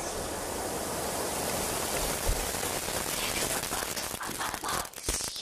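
Steady hiss of rain, heard through a portable recorder. It breaks into crackles and dropouts near the end as the recording cuts out.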